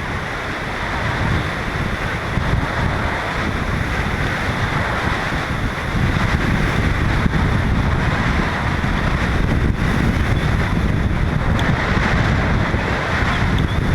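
Strong wind rushing and buffeting over a GoPro camera's microphone, a steady roar that grows a little louder about six seconds in.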